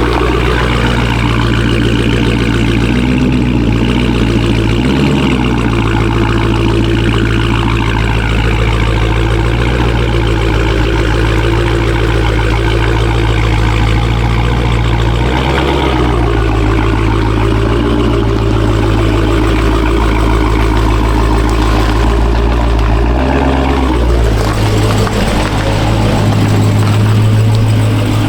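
Dodge Charger Hellcat's supercharged 6.2-litre HEMI V8 idling steadily as the car is inched forward, a little louder near the end.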